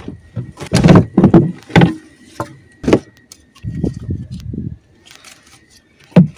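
Several sharp knocks and clattering, with a short low rumbling stretch in the middle.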